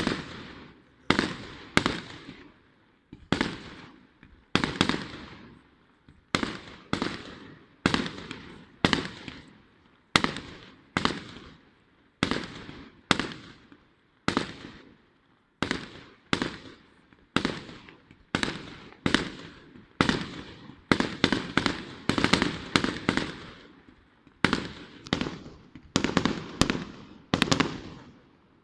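Fireworks display: a steady run of loud bangs, about one to two a second and often in close pairs, each trailing off in a rolling echo.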